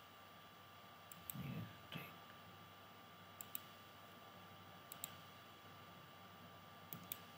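Computer mouse clicking, mostly quick double clicks a few seconds apart, over a faint steady electrical hum. About a second and a half in there is a brief low vocal sound.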